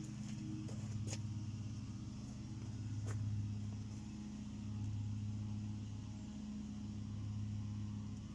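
Range Rover Classic engine idling steadily, its level swelling and easing slowly, with a few faint clicks.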